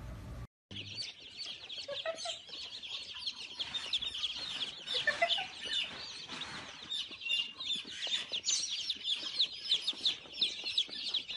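A crowd of baby chicks cheeping: many short, high peeps overlapping in a continuous chorus.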